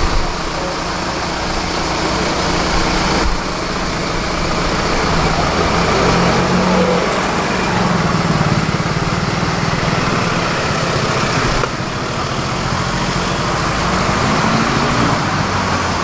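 Street traffic: cars driving past, a steady rush of engines and tyres that swells and fades as vehicles go by.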